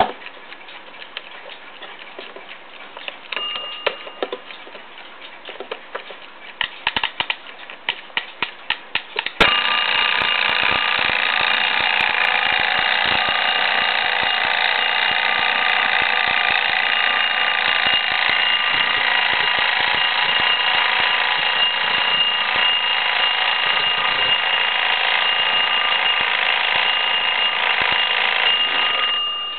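Rhythm alarm clock ticking, with a few louder clicks. About nine seconds in, its alarm starts ringing, a loud steady high ring that goes on for about twenty seconds and stops near the end.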